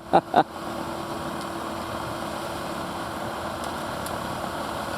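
A vehicle engine running steadily at low speed, a constant drone with one faint steady tone through it.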